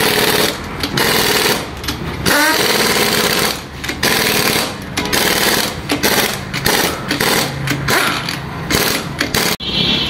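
Pneumatic air impact wrench hammering in repeated bursts of about a second each as it runs on and tightens the lug nuts of a newly fitted car wheel.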